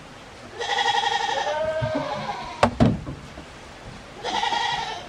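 A goat bleating twice, each a wavering, quavering call, the first about a second and a half long and the second shorter. Between the bleats come two sharp knocks in quick succession.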